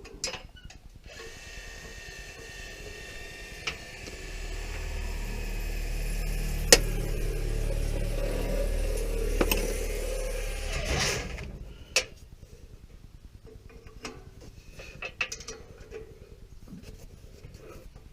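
Power wrench on a 14 mm socket running for about ten seconds against the Hemi 5.7's exhaust manifold bolts, working them loose, with a few sharp clicks. After it stops, scattered light clicks and knocks of hand tools.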